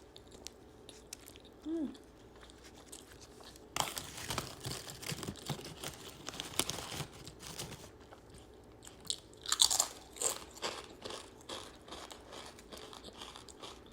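Close-miked eating: crunchy bites and chewing. The chewing comes thick from about four seconds in, and a run of loud, crisp crunches about ten seconds in is the loudest part.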